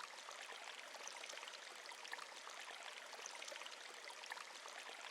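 Faint, steady sound of running water from a nature-sound background track, like a small stream trickling.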